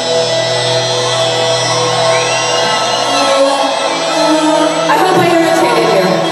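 Live concert music with steady held notes, and the audience shouting and whooping over it.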